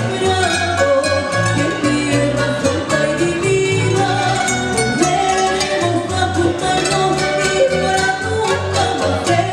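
Live band playing an Ecuadorian pasillo on acoustic guitars, electric bass and keyboard, with a woman singing the melody into a microphone.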